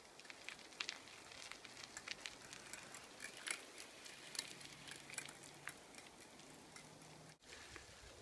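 Bicycle tyres rolling over a gravel and leaf-covered dirt trail: faint, irregular crackling and small clicks.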